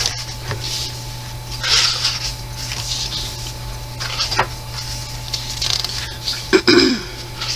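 Thick cardstock coloring-book pages being turned by hand: about four short papery swishes of a page sliding and flipping over, a second or two apart.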